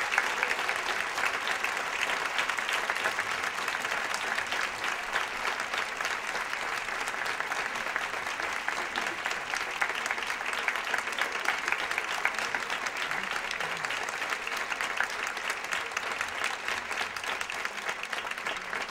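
Audience applauding: many hands clapping in a dense, steady patter, easing slightly near the end.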